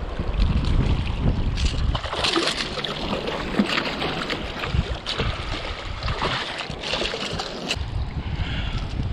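A hooked bluefish thrashing and splashing at the surface of shallow water, with wind buffeting the microphone as a low rumble. The splashing comes in bursts through the middle seconds.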